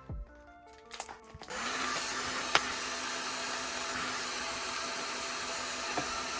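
Heat gun switching on about a second and a half in and running with a steady blowing hiss and low hum, with one sharp tick partway through.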